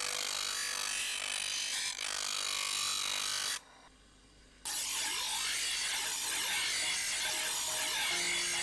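A tool working against material with a steady, continuous rasping hiss. It breaks off suddenly for about a second in the middle, then resumes.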